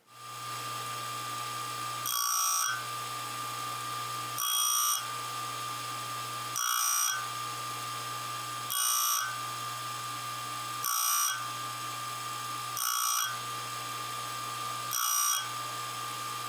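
A bench sanding or grinding machine's motor starts and runs with a steady hum and whine. About every two seconds a louder, brief rasp of grinding contact comes through as a screwdriver bit's tip is touched to it to square the tip.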